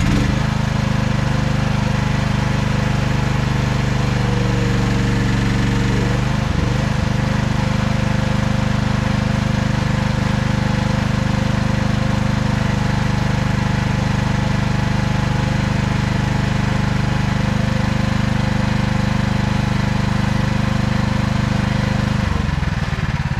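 Mini excavator engine running steadily at high throttle, with a brief waver in its note about six seconds in and a change in pitch shortly before the end as it eases off.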